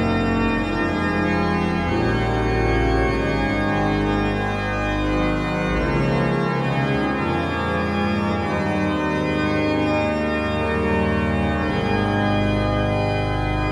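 Sampled pipe organ, the Müller organ of the Grote Kerk in Leeuwarden, played in mean-tone tuning. Sustained chords and moving lines are held over deep pedal bass notes that drop out and come back in a couple of times.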